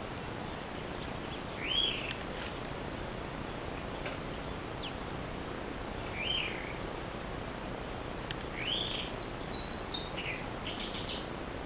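A bird calling three times, a few seconds apart, each a short chirp that rises and falls in pitch, over a steady background hiss.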